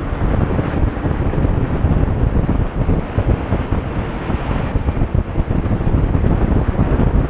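Heavy wind buffeting a microphone on a moving motorcycle, a dense, unsteady rush that covers any engine sound.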